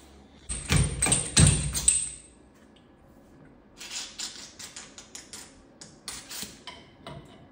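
Tool and metal-part clatter from motorcycle suspension work: a loud burst of rapid knocks and rattling early on, then a run of lighter, irregular clicks at about three a second.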